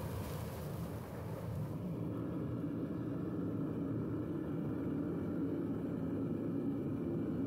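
Propane-fired Devil Forge furnace burner running with a steady rumble. For about the first two seconds a hiss rides over it as the zinc added to the molten copper reaches its boiling point and flares out of the lid hole.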